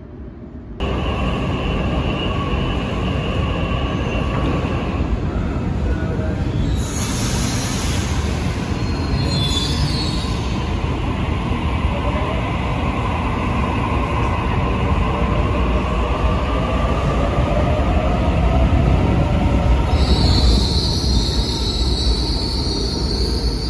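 Sydney Trains Waratah A set pulling out of an underground platform, starting suddenly about a second in. Its IGBT-VVVF traction inverters whine, rising in pitch as the train accelerates, over loud wheel-on-rail rumble. A high wheel squeal comes in near the end.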